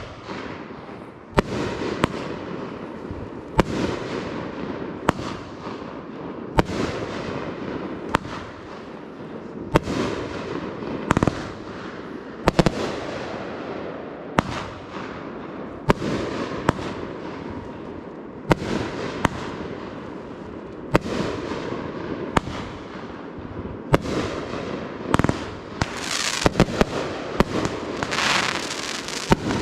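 Fireworks shells bursting in the air with sharp bangs every second or two, each trailing off into a crackling rumble. Near the end the bangs come thick and fast with dense crackling.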